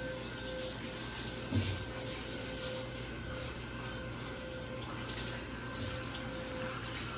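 Water spraying steadily from a handheld shower head onto a dog's wet coat, with one soft bump about one and a half seconds in.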